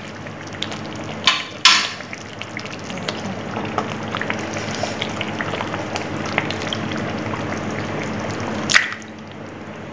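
Masala gravy sizzling and bubbling steadily in a steel kadhai, cooked until the oil separates on top. Two sharp metal clinks of steel utensils come about a second and a half in, and another just before the end as the bowl of paneer cubes is tipped into the pan.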